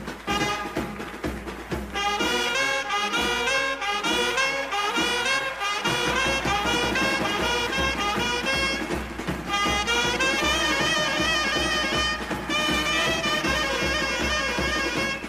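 Indian brass wedding band playing. Trumpets and other brass carry a fast melody over side drums beating a steady rhythm. About three seconds in, the drums drop back for a few seconds, then return.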